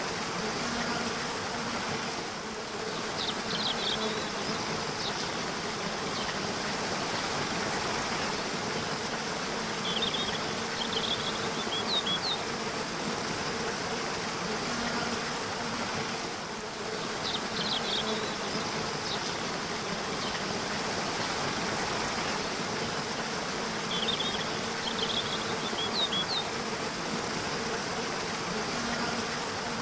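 Steady rush of a waterfall, with a bird chirping in short groups of quick high notes every several seconds and a flying insect buzzing in a low hum that swells and fades.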